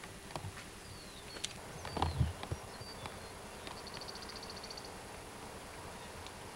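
Faint outdoor country ambience over steady tape hiss: a few short high chirps, a rapid high-pitched trill lasting about a second near the middle, and a dull bump about two seconds in.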